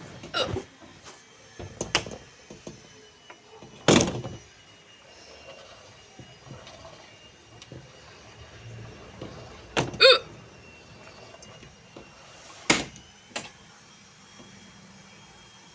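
A woman hiccupping: several short, sharp hics spaced a few seconds apart, the loudest about four seconds in and about ten seconds in.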